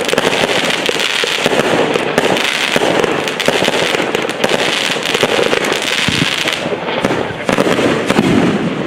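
Aerial fireworks bursting one after another: a continuous, dense run of bangs, pops and crackling with no pause.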